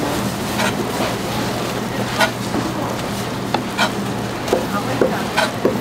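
Broad kitchen knife slicing boiled pork offal on a wooden cutting board, the blade knocking on the board at irregular strokes, over a steady market hum.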